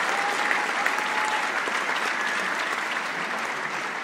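Audience applauding in a theatre, dense steady clapping that eases off slightly toward the end.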